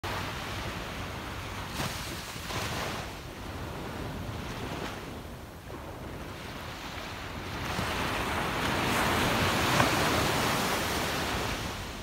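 Small waves breaking and washing up a sandy beach, a steady hiss of surf. A wave surges louder past the halfway point, peaks about three-quarters through, then eases off near the end.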